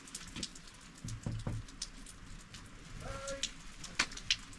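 Rain and sleet drops ticking irregularly on nearby surfaces, with a few dull thuds a little after a second in and a short pitched call about three seconds in.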